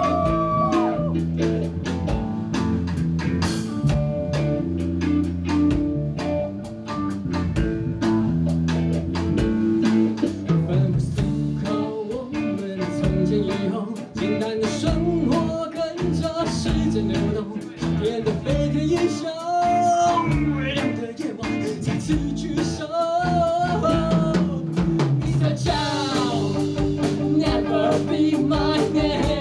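Live rock band playing: electric guitar, electric bass and drum kit keep a steady beat, with a lead singer's voice coming in over it at times.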